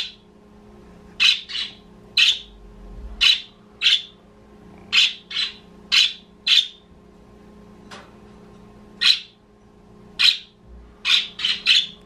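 Budgerigar chirping: short sharp calls, one at a time every half second to a second or so, with a quick run of four near the end.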